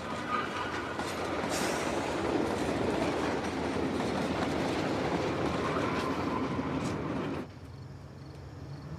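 Train running on its tracks: a dense, steady rattle of wheels and cars with occasional clacks. It cuts off suddenly about seven seconds in, leaving a quieter low hum.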